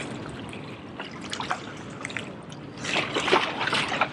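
Small waves lapping and trickling against jetty rocks, with scattered drips and a louder wash of water about three seconds in.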